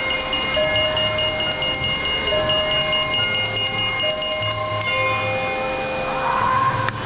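Drum and lyre corps playing: bell lyres ring out a melody of held, ringing notes over drums.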